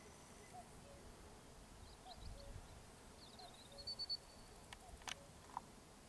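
Quiet open-field ambience with a few faint, high bird chirps about two to four seconds in, and a couple of short clicks near the end.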